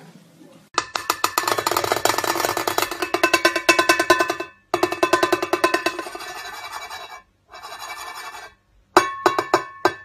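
White cockatoo drumming on a metal cymbal with its beak, rapid runs of many taps a second with the cymbal ringing, broken by short pauses. Near the end come a few slower, separate strikes that ring on.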